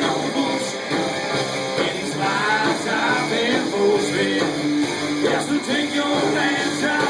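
Rock and roll band playing, with guitar and singing.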